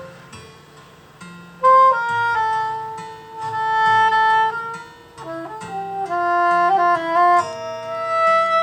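Saxophone playing a slow melody of long held notes over a soft low accompaniment; the melody pauses briefly near the start, then comes back in with a strong note and moves on through stepped, sustained pitches.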